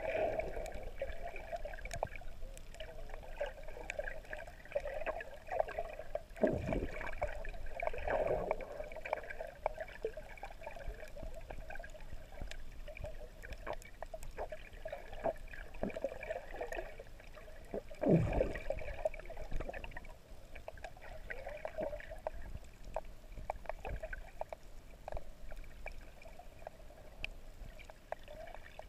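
Water sloshing and gurgling, muffled as heard by a camera under the sea, swelling irregularly with two louder surges about six and eighteen seconds in.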